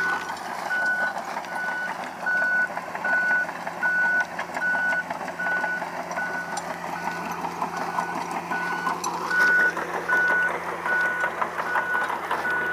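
Bulldozer's backup alarm beeping steadily about twice a second as it reverses, over its diesel engine running and a dense clatter of small knocks.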